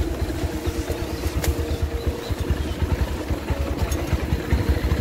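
Bajaj Pulsar 220F's single-cylinder engine running at low speed, with a rapid, even chugging of firing pulses, as the motorcycle rolls over a rough dirt trail.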